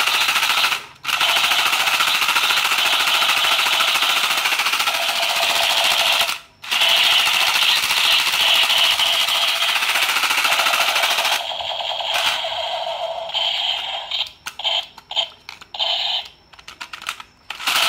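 Captain America toy pistol playing its electronic machine-gun sound effect in long continuous bursts, with brief breaks about a second in and about six and a half seconds in. After about eleven seconds the sound changes to shorter, choppy bursts.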